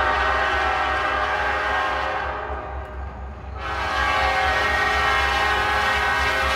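Diesel locomotive air horn sounding a long, loud blast that eases off about two seconds in and sounds loud again about three and a half seconds in, over a low rumble.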